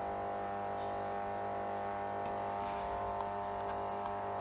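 Steady electrical hum made of several even tones, unchanging in level, with a few faint soft taps from hands working Play-Doh on a paper sheet.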